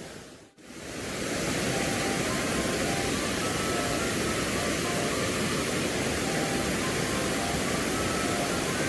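Steady rush of a mountain stream's flowing water, after a brief drop-out about half a second in.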